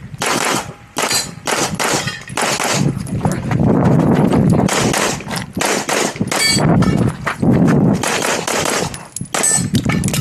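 Competition handgun firing fast strings of shots in quick succession, with a couple of brief breaks between strings.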